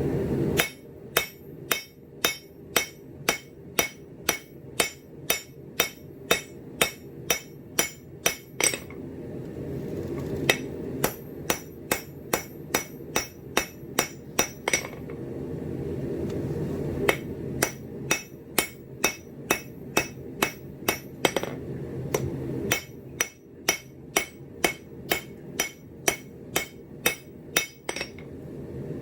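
Hand hammer striking steel on an anvil while forging, about two ringing blows a second, in four runs broken by short pauses.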